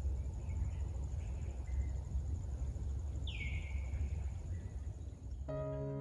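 Outdoor ambience with a low rumble, a steady high pulsing insect buzz and a few faint bird chirps, including one clear downward-sweeping bird call about three seconds in. Electric piano music comes in near the end.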